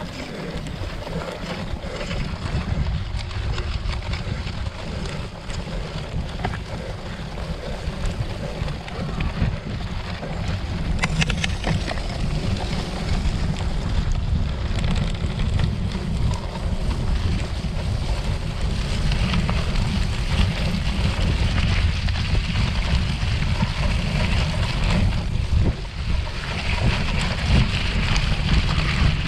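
Wind buffeting a cyclocross racer's camera microphone while riding, a steady low rumble, with scattered knocks and rattles from the bike on the course.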